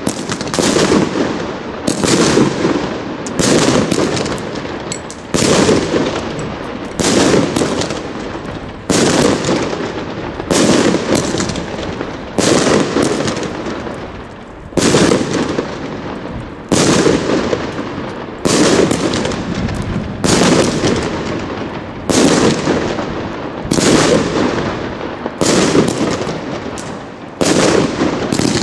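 Salute firework cake (Röder Vorschlaghammer, made by GAOO) firing its shells one after another: each silver-tailed shell rises and breaks with a loud salute bang, about one every two seconds. Each bang is followed by a rumble that fades before the next.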